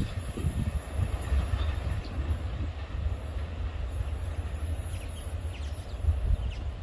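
Freight trains rolling through, with empty flat wagons and class 18E electric locomotives on the move: a steady low rumble of wheels and wagons on the rails, with a few faint clicks.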